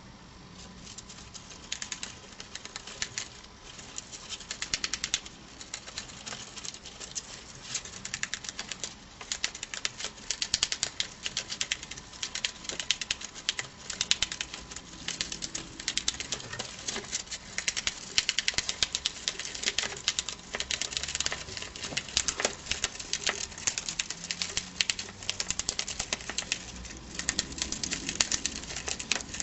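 Mongolian gerbils gnawing and shredding a strip of paper: rapid, crisp nibbling clicks in runs of several seconds with short pauses.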